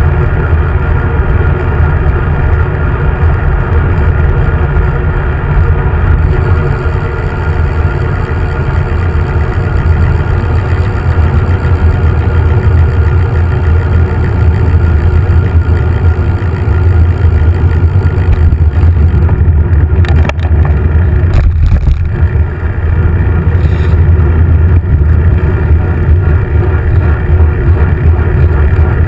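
Steady low rumble of wind and road vibration on a handlebar-mounted camera's microphone while riding a bicycle in traffic, with a few brief knocks about two-thirds of the way through.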